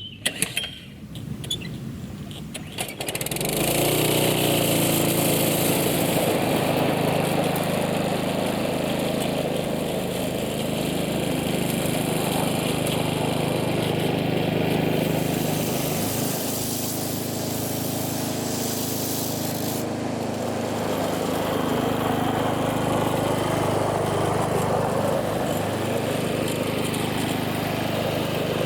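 Petrol lawnmower engine catching about three seconds in, then running steadily while mowing weeds. Its pitch dips briefly twice as it takes load.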